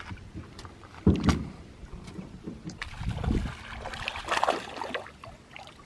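Knocks and bumps on a small fishing boat, loudest as two thuds about a second in, with scattered handling noise.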